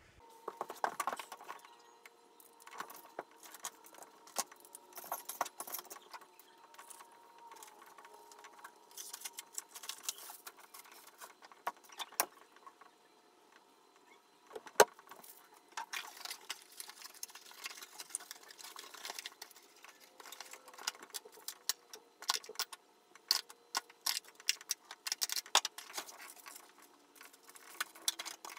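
Irregular small metallic clinks and rattles of hard objects being handled, with one sharper click about halfway through.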